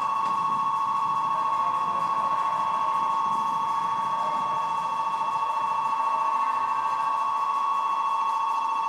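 Electric platform departure bell ringing without a break. It is switched on by station staff at departure time, as the signal that the train is about to leave.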